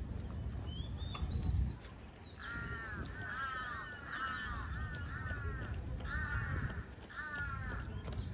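A bird calling: a run of about five harsh, repeated calls a couple of seconds in, then two more near the end, over a steady low rumble. A short rising whistle from another bird sounds about a second in.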